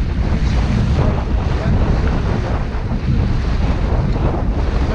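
Steady wind buffeting the microphone aboard a sailboat under way in a fresh breeze, a loud low rumble.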